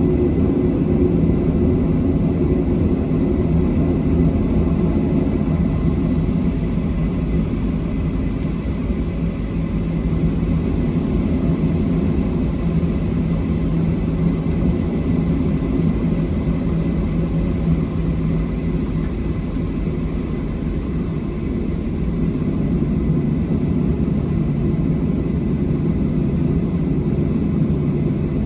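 Boeing 737-700's CFM56-7B turbofan engines and airflow heard from inside the cabin: a steady drone with a low hum and a faint, thin high whine.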